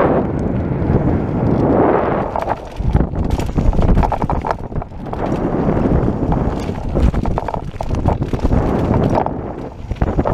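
Mountain bike ride noise on a rough dirt trail: tyres crunching over loose dirt and rocks, with the Specialized SX's chain and frame rattling and knocking on each bump, under rumbling wind on the microphone.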